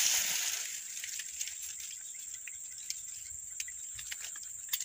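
Quiet outdoor ambience: a steady faint high-pitched hum with a few faint scattered clicks and rustles.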